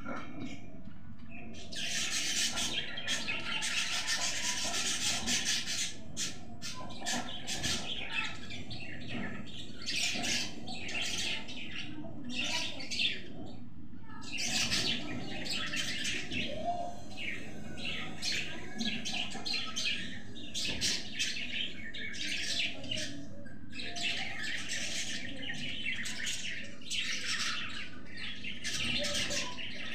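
Parrot chicks in the nest calling over and over with harsh, noisy chirps. One long unbroken run comes about two to six seconds in, followed by many short calls in quick succession.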